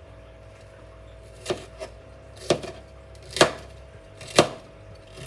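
Knife chopping through a young, loosely packed sugarloaf cabbage, with a crisp crunch at each cut, about one a second.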